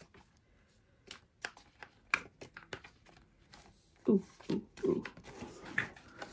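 Clicks and snaps of a clear plastic craft storage case being flipped, opened and handled, with paper rustling as a piece is pulled out of it. The clicks come one at a time, scattered and irregular.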